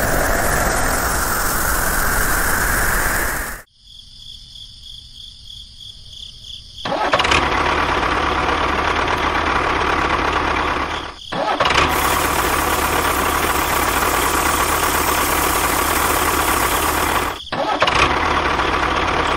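Tractor engine starting and running steadily, dropping out briefly twice. Before it comes a few seconds of steady hiss, then a quieter stretch with a faint high pulsing whine.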